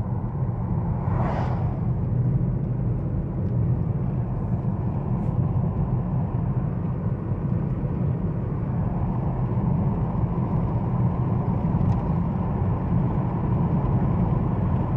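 Car coasting downhill in neutral, heard inside the cabin: a steady low rumble of tyre and road noise with the engine at idle. A brief whoosh about a second in.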